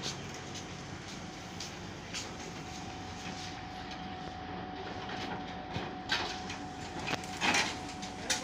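Steady street traffic noise with a faint steady tone running under it. A few sharp knocks and clatters come in the last two seconds or so.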